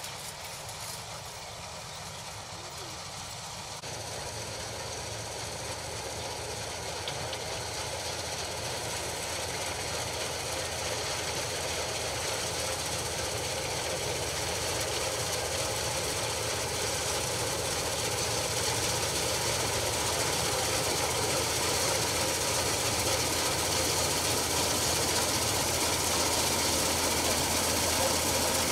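Combine harvester's diesel engine and threshing machinery running steadily while cutting wheat, with a steady low hum under a broad mechanical rush that grows gradually louder as the machine comes closer.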